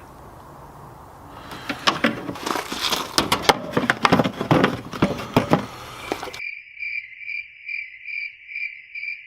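Irregular clattering and crackling for several seconds. It cuts off abruptly and a cricket takes over, chirping steadily with a high chirp repeated a little under twice a second.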